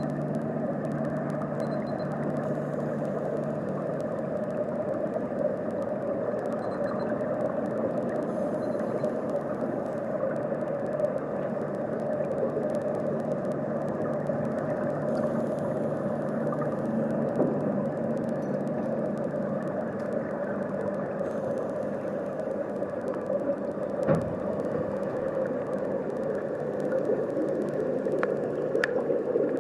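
Muffled, steady underwater rumble and hiss in a swimming pool, with a low hum that fades out about halfway through. A single sharp knock comes near the end.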